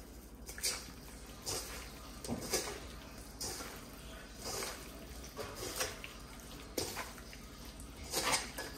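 Raw pepper-steak beef strips, wet with Italian dressing and seasoning, being mixed in a bowl: soft irregular wet squishing strokes, about one every half second to second.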